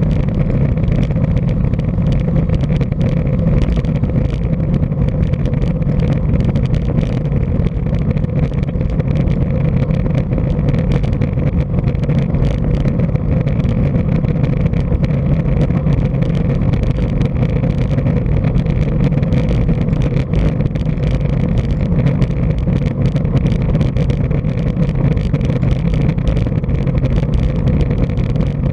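Steady wind rushing over a bike-mounted camera's microphone while riding a road bike, mixed with tyre and road rumble, heaviest in the low end.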